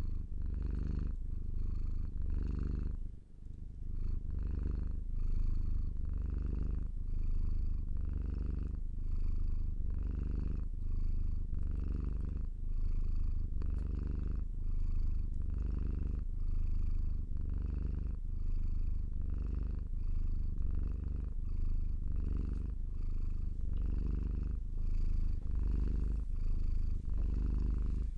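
Domestic cat purring in a steady rhythm that swells and eases with each in- and out-breath, with a brief break about three seconds in.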